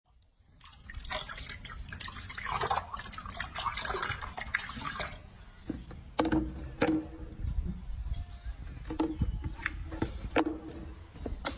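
Water splashing and dripping in a sink as a baby monkey is bathed by hand: busy splashing for the first five seconds or so, then single drips and plops into the water.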